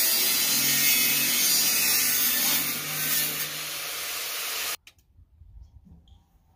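Angle grinder grinding the steel tube of a welded frame, a steady loud grinding over the motor's hum. It eases off a little about two and a half seconds in and cuts off suddenly just before five seconds.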